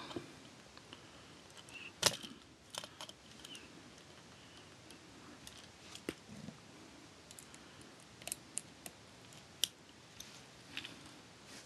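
Plastic parts of a Transformers Generations Voyager Class Springer action figure and its add-on weapons being handled and clipped together: scattered faint clicks and taps, the sharpest about two seconds in, with a few more near the end.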